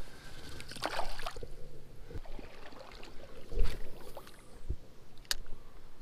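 Creek water splashing and sloshing as a small smallmouth bass is released back into the water. A louder thump comes about three and a half seconds in, and a sharp click near the end.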